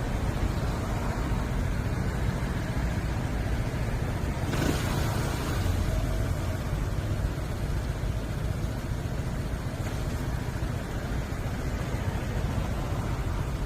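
Wind rumbling on the microphone and road noise while cycling on a road, with a brief louder rush of noise about four and a half seconds in.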